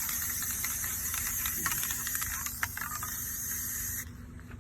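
Paint being sprayed onto the trailer's underside, a steady high hiss that cuts off suddenly about four seconds in.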